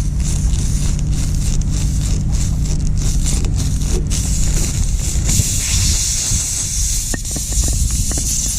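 A vehicle engine idles with a steady low rumble. About five seconds in, a loud high hiss comes in, and a few light clicks sound near the end.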